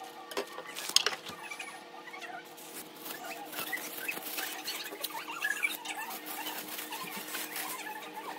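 Kitchen knife cutting into a ripe jackfruit, with a few sharp clicks, followed by a thin plastic food-handling glove crinkling as the fruit is pulled apart by hand.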